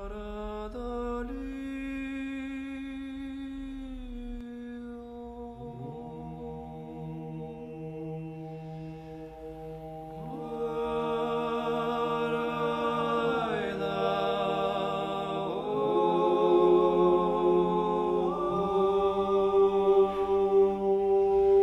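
Slow church chant sung by several voices in harmony, with long held notes. A single voice holds the line at first, a lower voice joins about six seconds in, and more voices enter about ten seconds in, growing louder toward the end.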